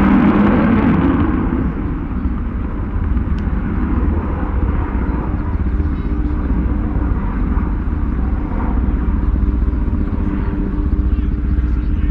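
Avro Vulcan's four Olympus turbojets rumbling steadily as the delta-wing bomber flies a display pass, loudest in the first second or so.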